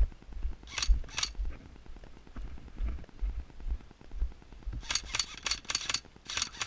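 Airsoft rifle firing sharp snapping shots: two about a second in, then a rapid run of shots from about five seconds in to the end.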